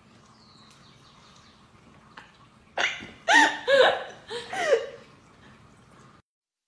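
Small kitten mewing four or five times in quick succession, high-pitched calls that rise and fall, starting about three seconds in.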